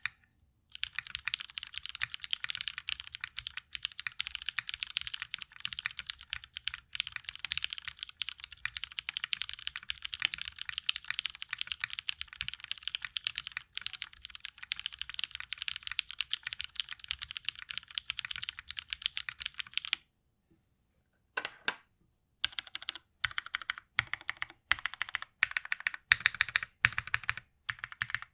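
Mechanical keyboard being typed on fast and continuously: a gasket-mounted Hyphen with lubed Kailh Brown switch stems in MX Black housings, CRP keycaps and an aluminium half plate. About two-thirds of the way through, the typing stops for a second or two. It then resumes as separate keystrokes at a slower pace, deeper-sounding than the fast run.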